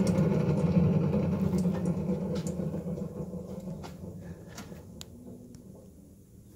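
Haas ST-25 lathe spindle motor, run on its own with a failing bearing, giving a low, rough rumble that fades away over about five seconds, with a few faint ticks. The rumble is the sign of the bad motor bearing.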